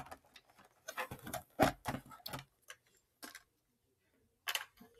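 Scattered light clicks and taps, irregular and unevenly spaced, from a plastic HO scale passenger car being handled and turned in the hands.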